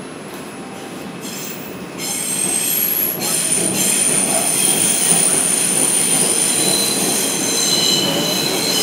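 R142 subway train running with a low rumble, its steel wheels starting to squeal against the rails about two seconds in: several high, steady tones at once, louder than the rumble.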